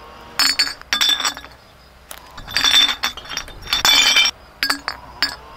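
Empty glass beer bottles clinking and clattering against one another as they are tossed onto a pile: a string of sharp clinks with a bright ringing after them, thickest about two and a half and four seconds in.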